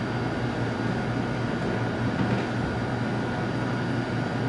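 Steady low hum with an even hiss over it, unchanging throughout, with no distinct knocks or other events.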